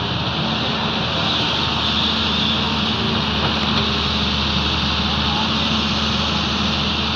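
Diesel engines of a Doosan excavator and a loaded UD dump truck running steadily, a constant low engine drone with no pauses.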